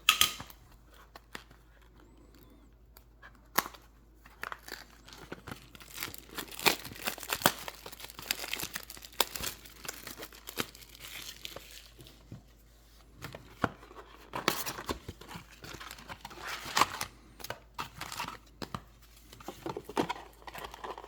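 Plastic wrapping on a hockey card box and its packs being torn open and crinkled, in two spells of crackly rustling with a short lull between them.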